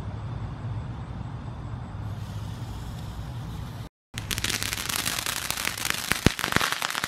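A steady low rumble, joined about two seconds in by a hiss. After a brief dropout about four seconds in, a TNT consumer firework fountain sprays sparks with dense crackling and sharp pops.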